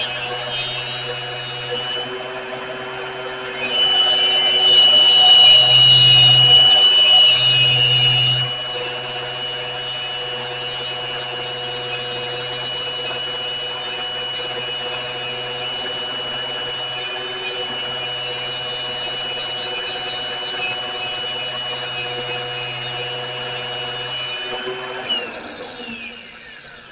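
Electric grinder running steadily while steel is ground on it, louder for a few seconds early on as the piece is pressed harder, then the motor is switched off and winds down near the end. The grinding heats the steel until it is too hot to hold.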